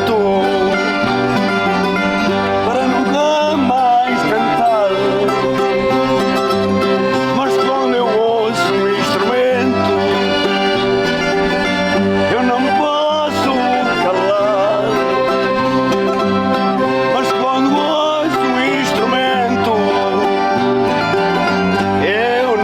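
Accordion and string instruments playing a traditional tune together at a steady, full level.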